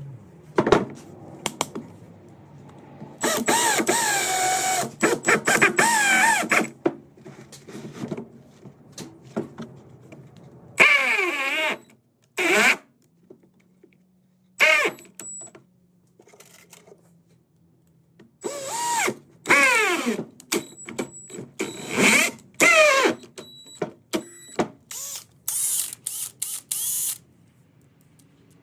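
Power drill driving 3-inch screws into rough-cut oak planks in several bursts of a second to a few seconds each. The motor's whine slides in pitch and drops as it bogs down in the hard oak, with short clicks between the bursts.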